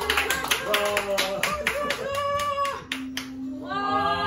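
Several people clapping their hands in a quick, steady rhythm, with excited voices over it; the clapping stops about three seconds in.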